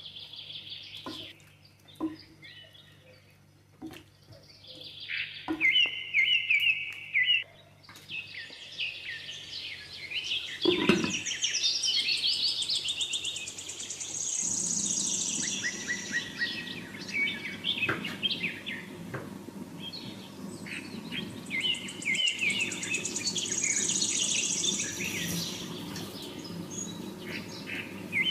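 Small birds chirping and singing in repeated short phrases. A few light clicks come early on, and from about halfway a low steady bubbling sets in: the stew simmering under a glass lid.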